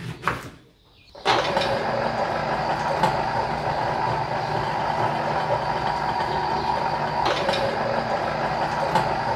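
A knife cuts once through a lemon, then an electric citrus juicer's motor starts about a second in and runs steadily as a lemon is pressed onto its spinning cone.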